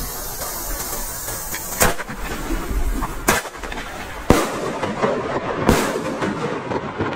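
Salon Roger Titanium Salute Color Thunder King flash-powder firecrackers going off: four sharp, very loud bangs a second or so apart, over a steady crackling hiss.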